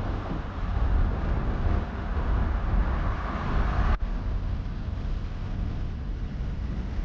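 Steady low rumble of a car driving, road and engine noise, with an abrupt change about four seconds in, after which the rumble goes on a little quieter.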